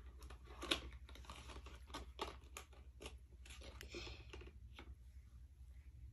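Faint handling clicks from a plastic lip balm tube as its cap comes off and the balm is swatched on the wrist: a scatter of small sharp ticks, the strongest a little under a second in.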